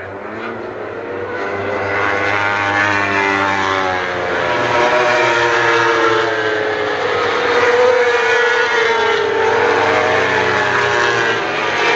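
Several World Superbike racing motorcycles passing at high revs, their engines overlapping, with pitches sliding up and down. The sound builds over the first couple of seconds and stays loud.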